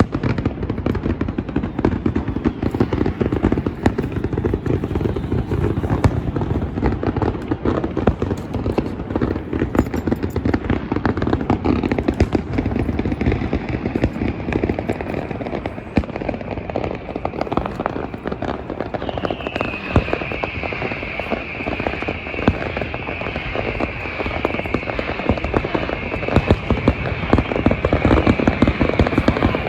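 Fireworks going off continuously in dense, rapid popping and crackling. About two-thirds of the way through, a steady high-pitched tone joins in.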